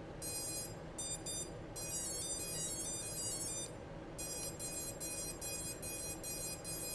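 Brushless drone motors beeping tone sequences from their Emax 30A ESCs as the LiPo is plugged in with the throttle at maximum: the ESC throttle-calibration beeps. Two short melodic runs of stepped tones, then from about four seconds in a string of short high beeps about three a second.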